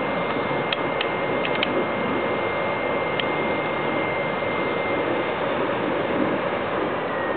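BioLite wood-burning camp stove running with its fan blowing into the fire: a steady rushing with a thin, high fan whine, and a few sharp clicks in the first half as the fire is poked. Near the end the whine starts to sink in pitch as the fan is turned down.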